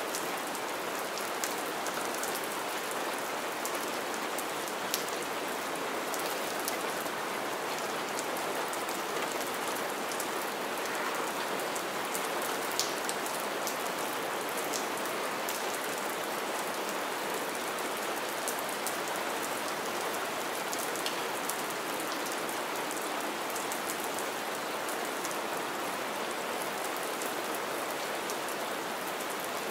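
Steady rain falling onto wet ground and shallow puddled water: a constant hiss with occasional sharper, close drop splats.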